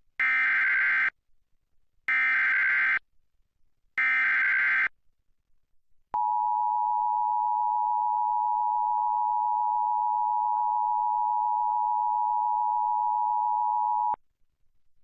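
Emergency Alert System broadcast header for a flash flood warning: three short bursts of warbling SAME digital data tones, about a second each and a second apart, then the EAS attention signal, a steady two-tone alert at 853 and 960 Hz held for about eight seconds that cuts off abruptly.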